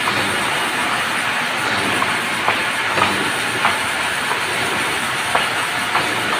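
Sawmill headrig carriage moving a large merbau log along its rails: steady machine noise with sharp clacks every half second to a second.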